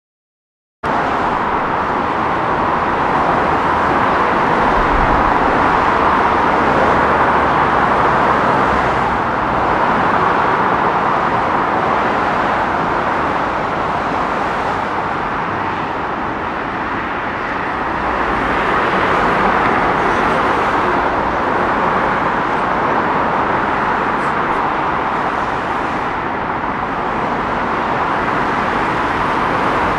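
Fast-moving traffic on a dual carriageway passing under a bridge: a continuous rush of tyre and engine noise that swells and eases as vehicles go by, starting abruptly about a second in.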